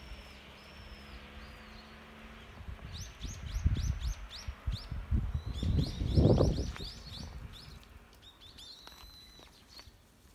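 Birds calling in three quick runs of high, downward-sweeping chirps. Underneath, a low rumbling noise swells and fades, loudest about six seconds in.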